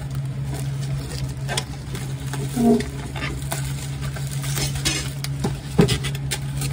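Bubble wrap and plastic packaging crinkling and crackling as a parcel is handled and cut open, over a steady low hum. A brief squeak about two and a half seconds in, and a sharp knock near the end.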